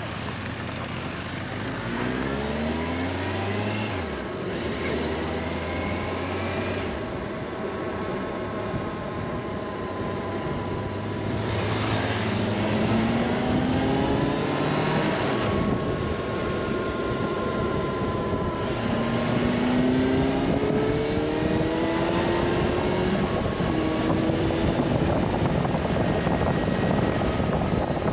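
Motorcycle engine pulling through the gears on the move, its pitch rising in several runs, under a heavy rush of wind noise.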